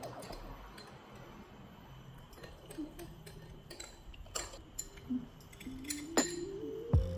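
A metal spoon clinking and scraping against a small glass bowl while stirring sugar, calamansi juice and soy sauce together: a few light, separate clinks.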